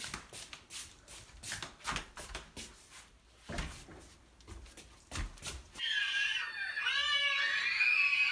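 Footsteps and handling knocks as a person walks down a hallway to a flat's front door, with two louder thumps about three and a half and five seconds in. About six seconds in, a steady high-pitched sound with wavering tones starts and runs on.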